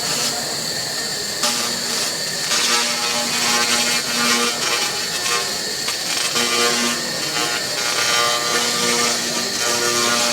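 Handheld fiber-laser cleaning head removing rust from metal: a continuous rough, hissing noise with a steady high whine, and a buzzing tone that comes and goes as the beam is worked over the surface.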